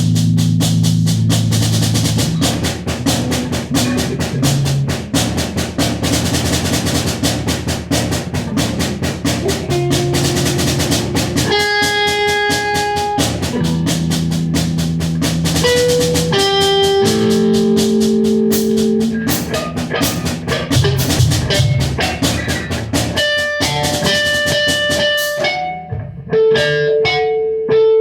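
Guitar and drum kit playing together, a rehearsal jam with steady drum hits under sustained guitar notes. Near the end the drumming drops away and the guitar carries on with a few ringing notes.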